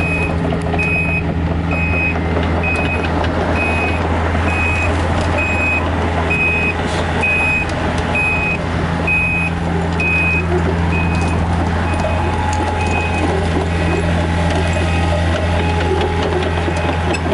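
Takeuchi TB153FR mini excavator's diesel engine running steadily under load while the machine tracks, its travel alarm beeping about once every 0.8 seconds; the beeping stops about two-thirds of the way through while the engine keeps running.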